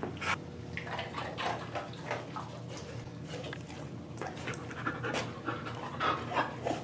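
Dog panting close to the microphone: a run of quick, short breaths.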